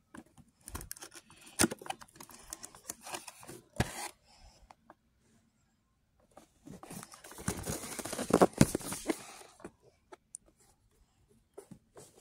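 Cardboard box handled and turned over by hand: rubbing, scraping and knocks of the cardboard. The sound comes in two busy stretches with a quiet pause of about two seconds between them, then a few scattered ticks.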